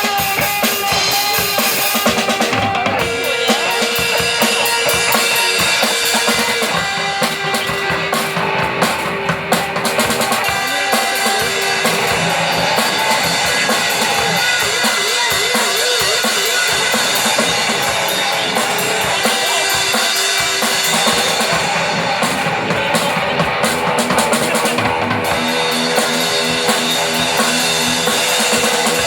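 Live rock band playing loud music, with a prominent drum kit keeping up bass drum and snare hits under amplified instruments.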